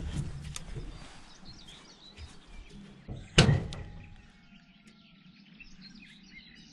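A single loud thunk about three and a half seconds in, after a softer knock at the start, with faint bird chirps in the background.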